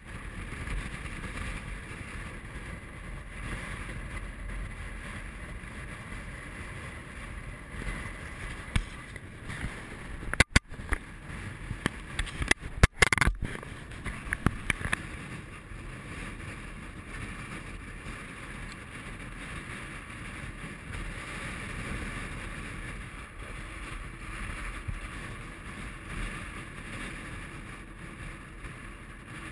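Strong wind buffeting the microphone of an action camera, a steady rushing rumble. A cluster of sharp knocks comes about a third of the way through and is the loudest part.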